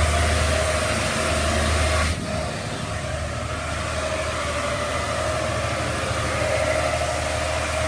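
Automatic car wash machinery running around the car: a steady rushing noise over a low rumble and a steady hum. The rumble and part of the rush drop away about two seconds in.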